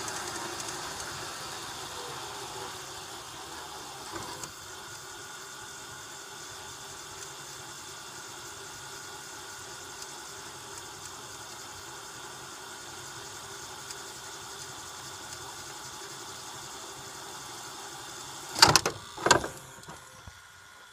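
VCR fast-forwarding a tape: a steady whir from the transport motor and spinning reels. Near the end come two loud mechanical clunks, a little under a second apart, as the deck stops at the end of the tape and goes to eject.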